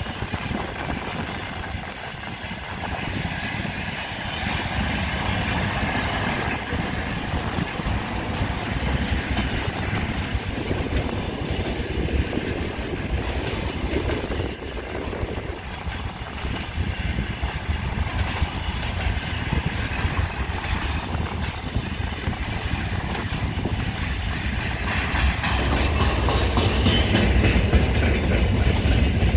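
Freight train rolling past, its wagons' wheels running steadily on the rails, growing louder with a deeper rumble near the end.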